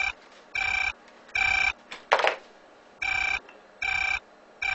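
A telephone ringing with an electronic ring: short, even beeps about 0.8 s apart. A brief sharp sound falls between two rings near the middle.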